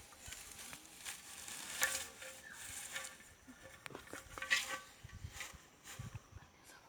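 Dry straw and twigs rustling and crackling as they are handled and pushed in by hand, in irregular bursts with a few sharp snaps.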